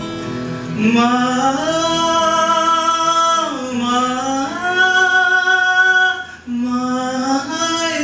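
A man singing long drawn-out notes over an acoustic guitar. His voice slides up into a held note about a second in and into another in the middle, then drops out briefly before a lower note near the end.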